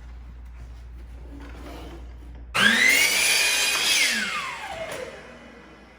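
Electric chop saw (miter saw) started about two and a half seconds in, its motor whine rising quickly as it cuts a 45-degree miter in a long piece of wooden window trim, then winding down with a falling pitch after about a second and a half.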